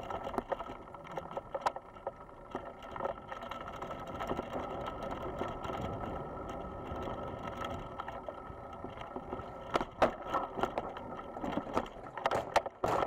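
Electric bicycle ridden over a bumpy dirt trail, heard from its handlebars: a steady rattle and rumble broken by sharp knocks from bumps, with a burst of louder knocks near the end as the wheels roll onto a wooden footbridge.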